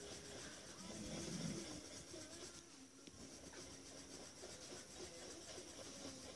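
Coloured pencil scratching faintly across heavy mixed media paper as it shades, with a radio playing faintly in the background.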